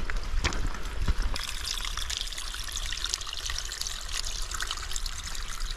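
A small trickling waterfall running over wet rocks, a steady splashing trickle. A few sharp footfalls on the rocky trail come in the first second or so.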